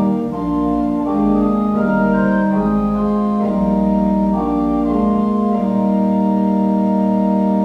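Pipe organ playing sustained chords that move from one to the next, then settle about six seconds in on a long held chord.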